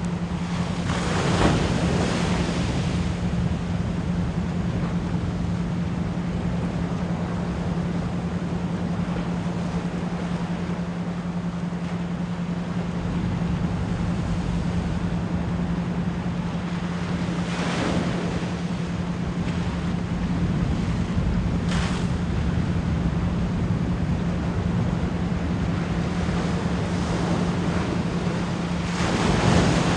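Ocean waves washing and breaking, with louder breakers about a second in, just past the middle and at the end, under a steady 174 Hz pure tone pulsed as an isochronic beat.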